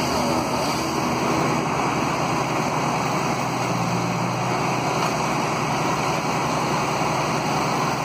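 Steady road traffic noise with a low engine hum running under it.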